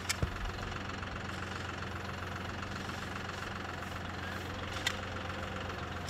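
John Deere 5075E tractor's diesel engine idling steadily, with a couple of brief clicks, one at the start and one about five seconds in.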